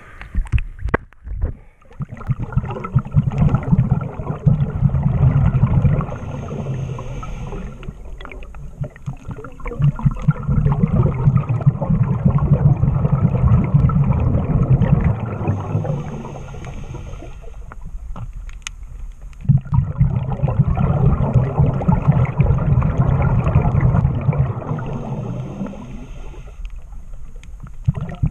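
Scuba regulator breathing underwater: long bursts of exhaled bubbles rumbling and crackling, each followed by a short hissing inhale, about three breaths. At the very start there is water sloshing as the camera goes below the surface.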